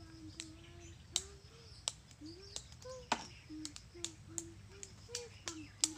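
Irregular light clicks and taps of hands handling a chainsaw's metal and plastic parts while it is being cleaned. A bird calls throughout in short, repeated low notes.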